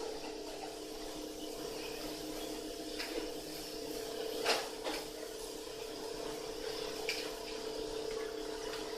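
Short-arm double-needle industrial sewing machine running without sewing, a steady hum with a few sharp clicks about three, four and a half and seven seconds in.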